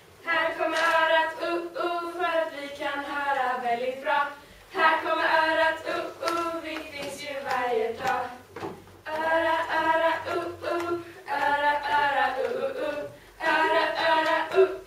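A group of girls singing together without accompaniment, in phrases broken by short pauses.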